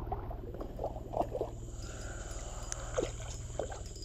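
A hooked zebra tilapia splashing at the water's surface while being played on a light spinning rod, with short splashes around a second in and again near three seconds, over a steady low rumble.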